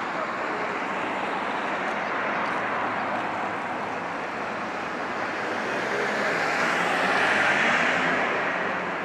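Road traffic: a steady wash of passing-vehicle noise that swells to a peak about seven to eight seconds in, as a vehicle goes by, then fades.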